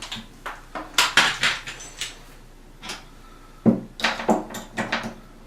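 Metal door-handle hardware clinking and knocking as the parts are handled and fitted: a string of sharp clicks and clanks, in a cluster about a second in and another around four seconds.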